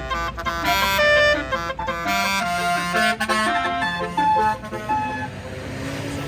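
Tour bus telolet horn, a multi-note air horn, playing a fast melody of stepped notes. The notes are loudest in the first half and grow softer and lower toward the end.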